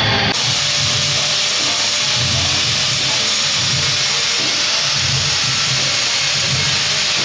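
Handheld angle grinder grinding down a weld on steel held in a vise, a steady loud hiss of the abrasive disc on metal that starts abruptly just after the start.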